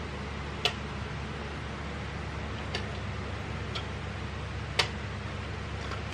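A few sharp clicks of small hard objects being handled, two louder ones about a second in and near the end, and fainter ticks between, over a steady background hiss.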